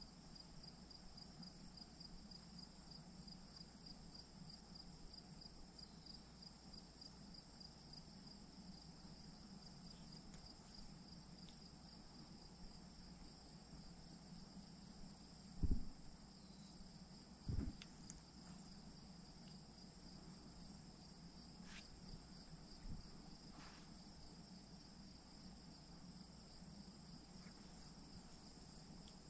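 Faint insect song: two steady high trills at different pitches, the lower one a fast pulsing chirp. Two dull thumps come just past the middle.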